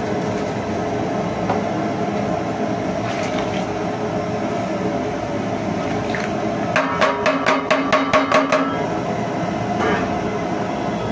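Steel bowl knocked about ten times in quick succession against a large aluminium cooking pot, metallic and ringing, about two-thirds of the way in, shaking the last whole spices out of the bowl. A steady hum underneath.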